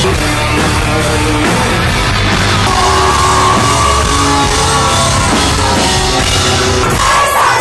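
Live rock band playing loud, with a drum kit in the full band sound.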